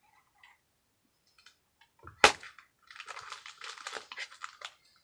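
Toy packaging being handled: one sharp knock or snap a little over two seconds in, then a couple of seconds of crinkling and rustling of plastic wrapping.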